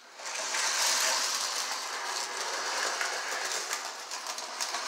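Lionel 8632 4-4-2 O gauge locomotive and tender running on the track: motor and gears whirring and wheels clattering over the rails. It starts suddenly and builds over about the first second, then runs steadily, setting off in reverse after its reversing unit has cycled through neutral.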